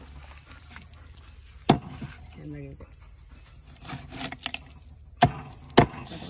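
A long curved knife chopping through a whole fish's head on a wooden board: three sharp knocks, one about two seconds in and two close together near the end. A steady high-pitched insect buzz runs underneath.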